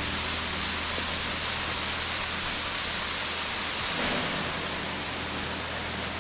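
Waterfall rushing: a steady, even rush of falling water that becomes slightly duller and quieter about two-thirds of the way through.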